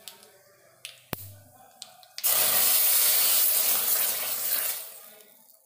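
A hot tempering of oil with mustard seeds, asafoetida and curry leaves poured into a pot of sambar. After a couple of sharp clicks, a loud sizzle starts suddenly about two seconds in and fades out over the next three seconds.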